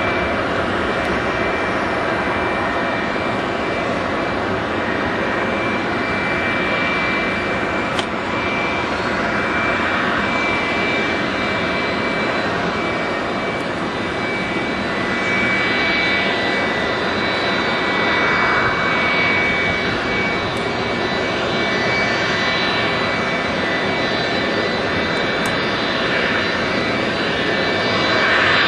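Twin jet engines of a Delta Boeing 757-200 airliner running steadily, a dense noise with several high, steady whining tones over it.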